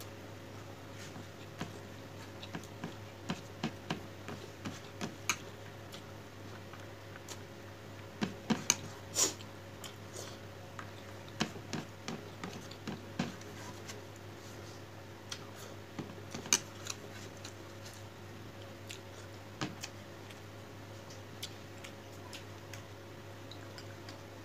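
Eating sounds at close range: scattered small clicks and taps, with a cluster of louder ones about eight to nine seconds in and another single louder one about halfway through, over a steady low hum.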